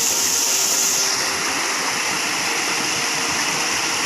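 Waterfall and stream water rushing: a steady, loud hiss of falling and running water, its highest part easing a little about a second in.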